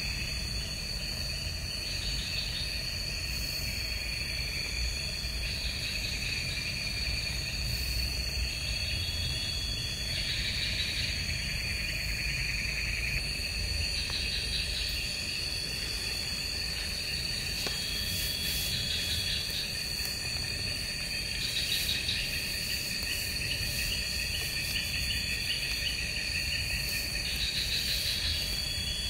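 Night insect chorus in tropical forest: one steady, unbroken high trill, with other insects chirping in repeating bursts every two to four seconds. A low, even rumble lies underneath.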